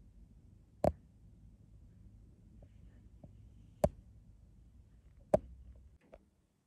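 Three sharp clicks or knocks, about a second, four seconds and five and a half seconds in, over a faint low rumble, with a softer double click just after six seconds before the sound cuts off to near silence.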